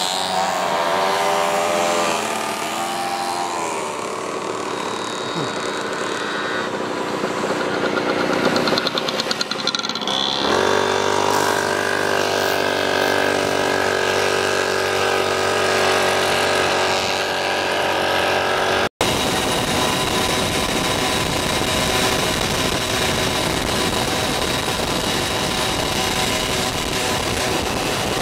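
Small moped engines running as a group rides, their pitch wavering up and down in the first few seconds. From about ten seconds in, one engine holds a steady note; after a sudden cut just past the middle, it turns into a rushing noise with the engine drone underneath, heard from on board.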